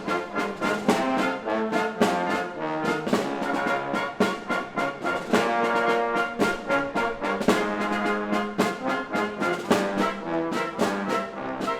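Symphony orchestra playing loudly with the brass section leading, over frequent regular percussion strokes.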